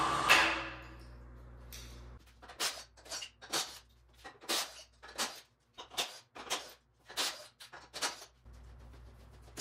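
Electric crane hoist running and cutting out within the first second, followed by a regular run of short rasping strokes, about two a second.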